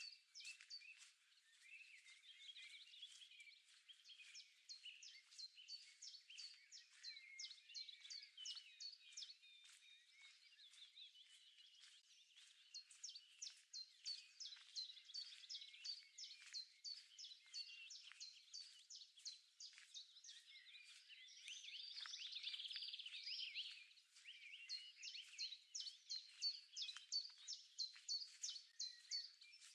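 Faint birdsong: one bird repeating a short high note about three times a second in runs of several seconds, with a denser warbling song from another bird about two-thirds of the way through.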